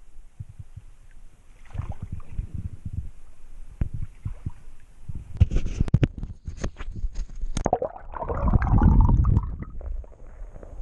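Knocks and rubbing of hands handling a camera, then splashing and a muffled gurgling rumble as the camera is dipped under the creek water, loudest about eight seconds in.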